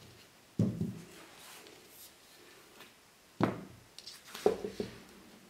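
Handling knocks and clicks from a Velbon Pole Pod EX monopod and its plastic tripod base: one sharp knock about half a second in, another a few seconds later, then a quick run of clicks and knocks near the end.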